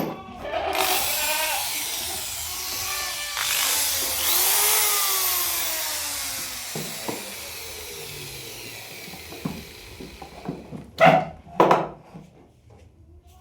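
Wooden cable roller spinning with a whirring rattle that slows down as it coasts, given a fresh spin about three seconds in. Two loud knocks near the end.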